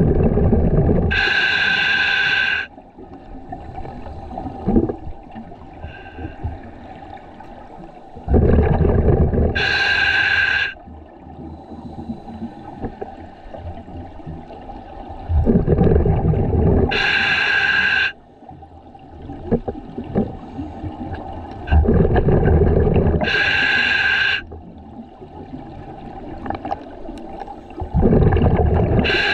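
Scuba diver breathing through a regulator underwater: five breaths about six and a half seconds apart, each a loud low rush of bubbles followed by a higher hiss from the regulator, with faint crackling in between.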